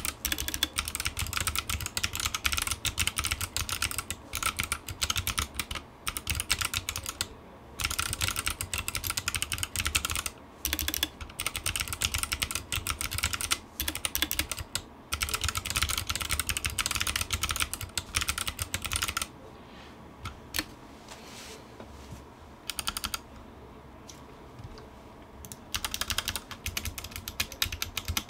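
Fast typing on a Drop CTRL mechanical keyboard with Kailh BOX White clicky switches: a rapid stream of sharp clicks. There are a few short pauses and, a little past the middle, a lull of several seconds with only a few scattered keystrokes before fast typing resumes.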